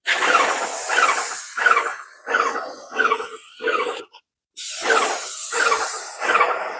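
Paint sprayer running in rhythmic pulses, about two a second.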